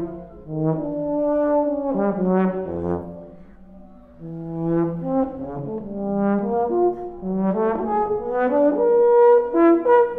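Euphonium with live electronics playing a stream of short and held notes that overlap, several pitches sounding at once as the electronics layer the horn's sound. The music dips to a quieter moment about four seconds in, then builds again.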